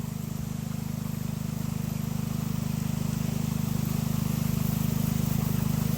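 Steady low motor drone with a fast, even pulse, slowly growing louder.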